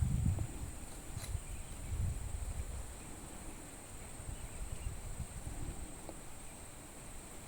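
Outdoor ambience at the water's edge: an uneven low rumble like wind or handling on the microphone, a steady high-pitched hiss, and a single sharp click about a second in.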